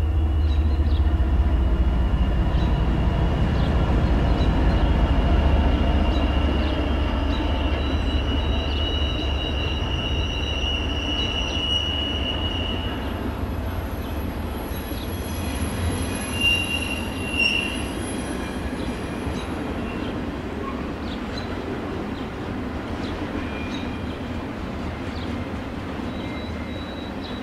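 N scale model grain train rolling past on the layout track: a steady low rumble of the model locomotives and hopper wheels, loudest in the first few seconds and slowly fading. Thin high-pitched wheel squeal runs through the first half, a higher squeal follows in the middle, and there are two short louder squeaks about 16 and 17 seconds in.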